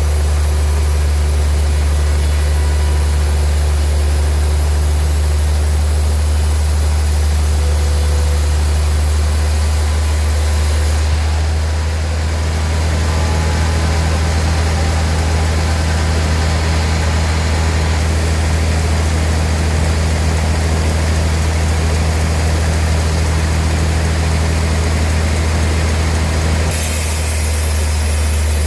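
Sawmill machinery running with a loud, steady low drone. About eleven seconds in, the high hiss thins out and the hum's pitch shifts; the hiss comes back near the end.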